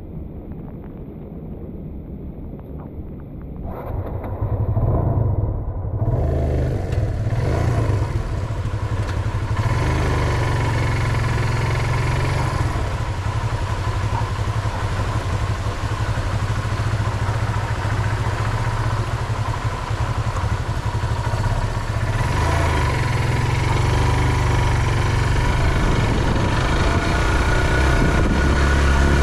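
Motorcycle engine on a sidecar tricycle loaded with sacks. It gets louder about four seconds in, then runs steadily as the bike rides along.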